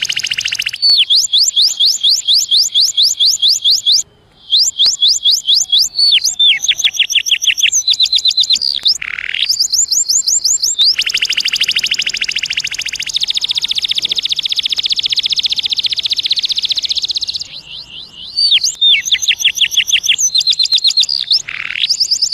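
Male domestic canary singing its courtship song: long runs of rapid, high repeated notes in quick trills, with a short break about four seconds in and a long, fast roll of notes through the middle.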